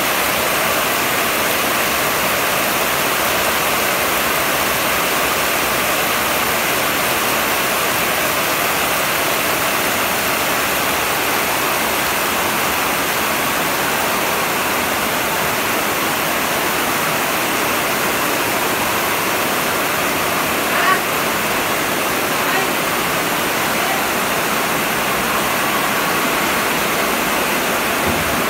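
Heavy rain pouring down in a loud, steady hiss, with one brief knock about two-thirds of the way through.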